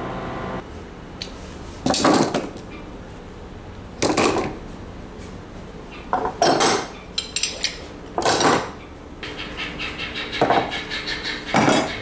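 Metal woodworking clamps, bar clamps and F-clamps, being picked up and set down on a wooden workbench: about six sharp clanks a second or two apart, with lighter clicks and rattles in between.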